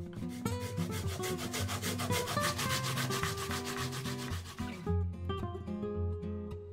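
Korean radish grated briskly on a hand grater with metal teeth, a fast, even run of rasping strokes that stops about five seconds in. Soft guitar background music continues underneath.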